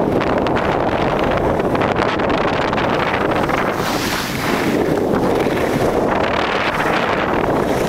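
Rushing wind buffeting the microphone of a camera carried down a ski slope at speed, steady and loud, with a brief dip about four seconds in.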